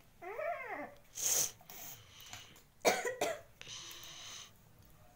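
A child's voice making short sounds that are not words: a brief wavering vocal sound, a sharp breathy burst, then a cough, followed by a soft hiss.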